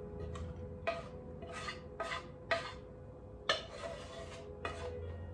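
A metal utensil clinking and scraping against a cooking pan several times at irregular intervals, some strokes leaving a short ring.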